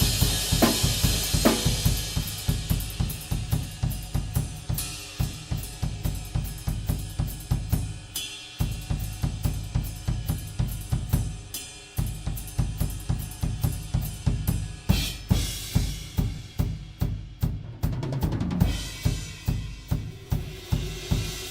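Drum kit played solo: rapid, even bass drum strokes under snare and hi-hat, the bass drum dropping out briefly twice, with cymbal crashes swelling up in the second half.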